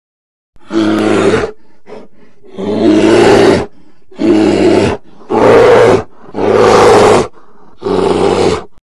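Brown bear roaring six times in a row, each roar about a second long, with short gaps between.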